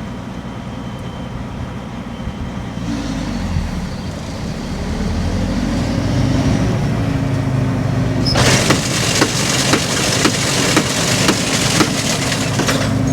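A combine harvester runs steadily and picks up revs about 3 s in. About 8 s in the draper front is engaged and starts a loud rushing, with sharp knocks about twice a second: the 'hitting' that the farmer puts down to the mat striking a bent plate.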